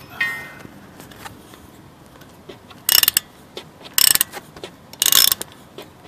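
Hand ratchet tightening a rear brake caliper bolt: three short bursts of rapid pawl clicking about a second apart, one for each back-swing of the handle, in the second half. A sharp metallic clink with a brief ring comes just after the start.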